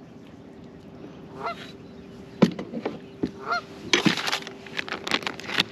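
Geese honking, two faint calls about a second and a half and three and a half seconds in, over a steady low hum. From about two and a half seconds in there are sharp knocks and bursts of noise, loudest about four seconds in.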